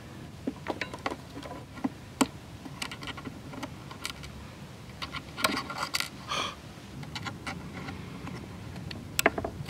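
Fine-tipped tweezers clicking and scraping in the output jack hole of a hollow-body Epiphone Casino guitar while fishing for the fallen jack: scattered small, irregular clicks and ticks, a few louder ones, with a short cluster near the end.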